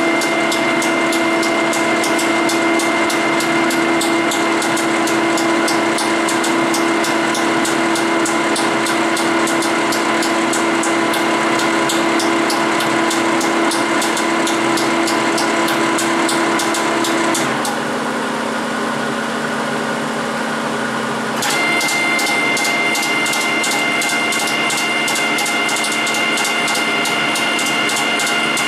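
Capstan lathe running at slow speed with a steady mechanical hum and a fast, even ticking, while a tapping head in the capstan cuts a thread into a drilled hole. About two-thirds of the way through, the ticking stops and the sound drops a little for a few seconds, then picks up again.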